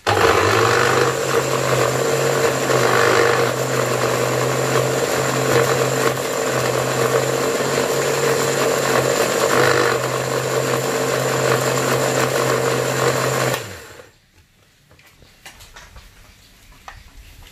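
Electric kitchen blender running, grinding chopped spices into a paste. Its motor spins up at the start, runs steadily for about fourteen seconds, then cuts off.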